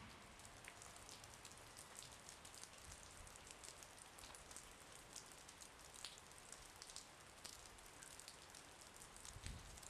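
Faint patter of light rain, with many small drops ticking irregularly close to the microphone over a soft hiss.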